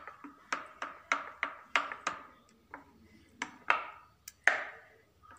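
Steel spoon clinking against the sides of a bowl while beating a thin, dosa-consistency batter of flour, egg and water. About a dozen irregular clinks, each ringing briefly, the loudest about four and a half seconds in.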